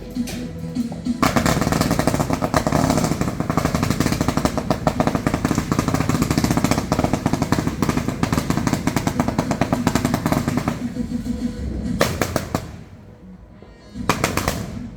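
Fireworks going off in a rapid, dense string of pops for about ten seconds, then two shorter bursts near the end, with music playing underneath.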